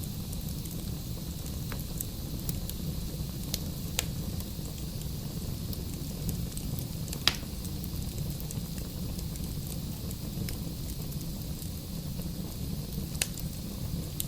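Wood fire burning in a fireplace: a steady low rumble of flames with scattered crackles and pops from the logs. The sharpest pop comes about seven seconds in.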